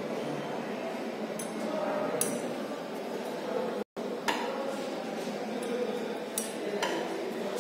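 Light glass clinks, about five short ones spread out, as a glass conical flask is swirled under a burette during an EDTA titration, over a steady low background hum.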